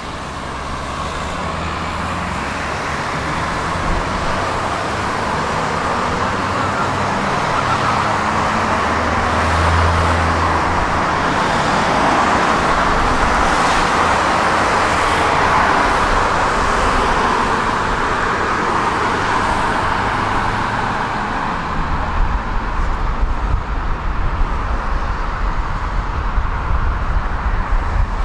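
Tram running along its track, heard from on board: a steady rolling noise of wheels on rails that grows louder over the first ten seconds, then turns rougher, with an uneven low rumble, in the last several seconds.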